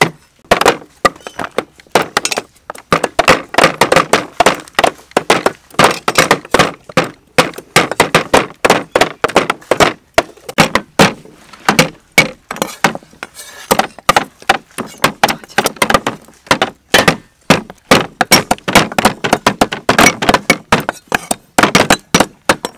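Cleavers chopping chicken feet and a root on thick round wooden chopping boards: a fast, irregular run of sharp chops, more than one cleaver going at once.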